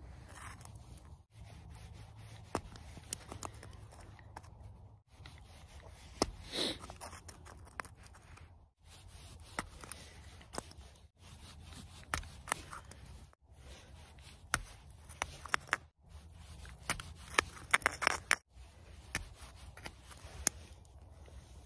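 Push pin pricking small holes around the top rim of a thin aluminum drink can to make a can stove: irregular light clicks and scrapes of the pin on the metal, over a low steady rumble.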